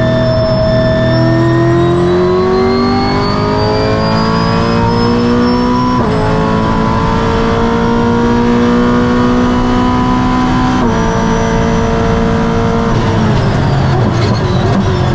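Brabham BT62's naturally aspirated 5.4-litre V8 heard from inside the car under full acceleration, its note climbing steadily and dropping sharply with quick upshifts about six and eleven seconds in. Near the end the pitch falls away as the driver lifts off.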